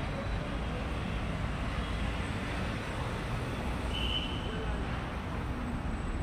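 Busy city street ambience: a steady rumble of passing traffic, with indistinct voices and a brief high-pitched tone about four seconds in.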